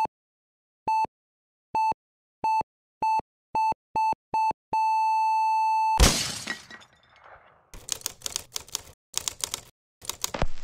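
A high electronic beep repeating faster and faster, then held as one long tone for about a second, cut off by a loud glass-shattering crash about six seconds in. After it, a quick run of typewriter key clacks.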